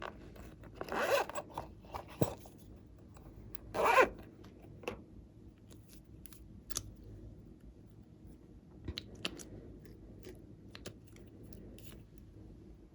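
Hands working slime and plastic piping bags: a run of small clicks and crackles, with two louder rasping sounds about a second in and near four seconds.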